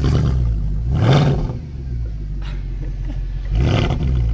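Mercedes-Benz C63 AMG's 6.2-litre V8 running through its quad exhaust, revved in two short throttle blips, about a second in and again near the end.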